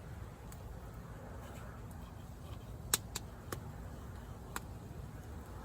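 Low steady rumble of wind, with a handful of short sharp clicks a few seconds in.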